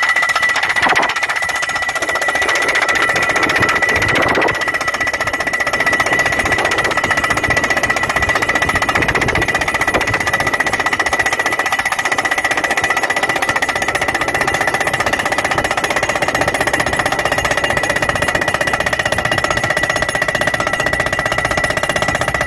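Orteco pile-ramming rig's hydraulic hammer pounding a steel solar-mounting post into sand, a rapid, unbroken run of blows with a steady high tone underneath.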